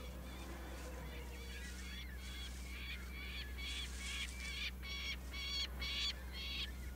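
A bird calling in a quick series of short, high calls, about three a second, starting about two seconds in and getting louder toward the end, over a low steady hum.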